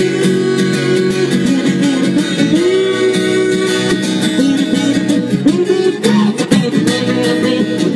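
Instrumental break of a pop song, led by plucked guitar with a melody line that bends in pitch.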